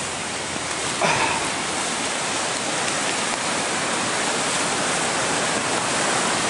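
A creek in flood after heavy rain, fast brown floodwater rushing and churning through its channel in a steady, continuous noise.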